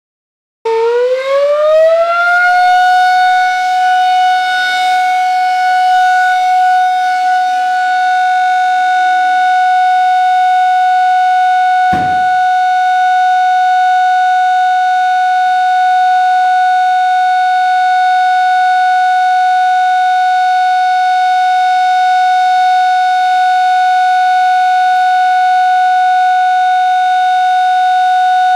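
Volunteer fire brigade alarm siren on a mast, sounding loudly: it starts about half a second in, rises in pitch over about two seconds, then holds one steady tone. A single brief knock is heard about twelve seconds in.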